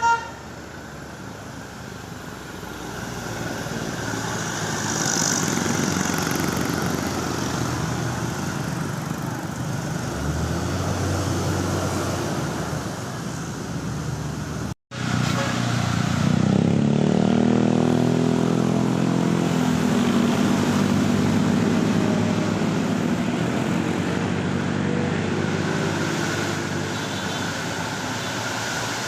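Roadside traffic: vehicles passing with engine and tyre noise. The sound drops out briefly about halfway through. Then a heavy engine passes close by, its note shifting as it goes past.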